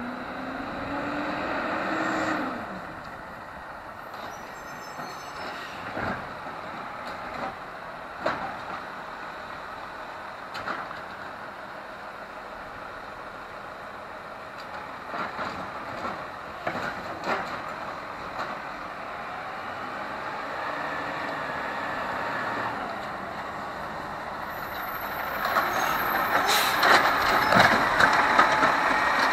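Automated side-loader garbage truck working along the street: the diesel engine revs up in the first couple of seconds, then keeps running, with scattered clanks and knocks and air-brake hisses. The truck grows much louder over the last few seconds as it pulls up close.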